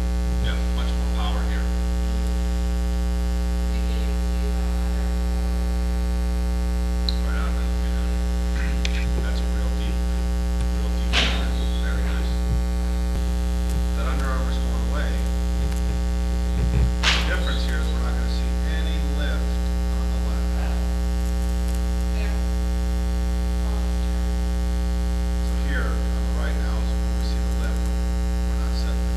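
Loud, steady electrical mains hum with a stack of even overtones, with two faint knocks about eleven and seventeen seconds in.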